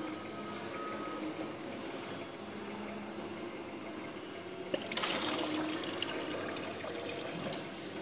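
Water running into a stainless-steel pasta cooker's basin. A click is heard about two-thirds of the way in, then a loud rush of water that slowly eases off.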